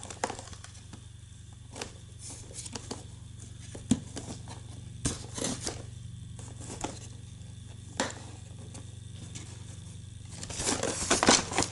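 Scattered clicks and taps of plastic packaging being handled as a toy car is worked loose from its box, over a low steady hum, turning into a busy crinkling rustle near the end.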